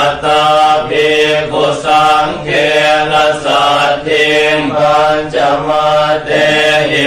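Buddhist chanting in Pali: a steady, evenly paced recitation that runs on syllable by syllable without a break, over a steady low tone.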